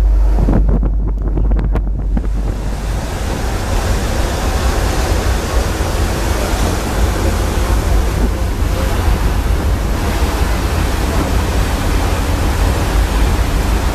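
Wind buffeting the microphone on the open deck of a ferry under way, over the steady rush of sea water along the hull and a low rumble. About two seconds in the sound changes from a low rumble with a few clicks to an even, full hiss.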